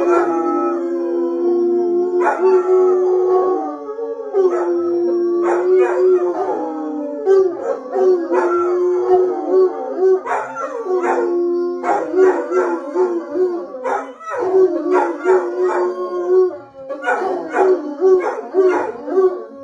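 A group of hounds, bloodhounds and a basset hound, howling together: long held howls overlapping with short, broken baying calls, repeating in bouts with brief lulls.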